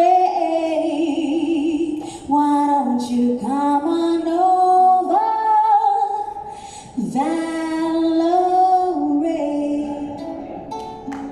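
A woman singing a slow song live through a microphone, holding long notes with vibrato, with acoustic guitar accompaniment beneath. Her phrases break off twice for short pauses and fade near the end.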